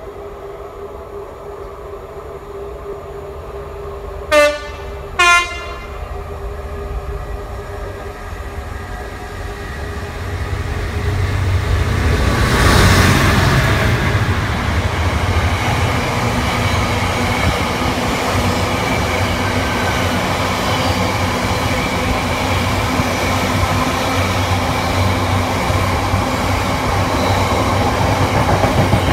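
A GB Railfreight Class 66 diesel locomotive, with its two-stroke V12 engine, sounds two short, loud blasts on its two-tone horn as it approaches. The locomotive then runs past, loudest about halfway through, followed by the steady rumble and wheel clatter of a long train of box wagons passing.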